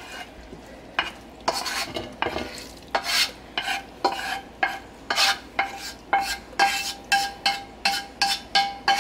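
Wooden spoon scraping and tapping across a nonstick skillet as diced sautéed vegetables are pushed off it into a pot, in repeated short strokes. The strokes come faster and more evenly from about halfway, about two or three a second, many with a brief ringing note from the pan.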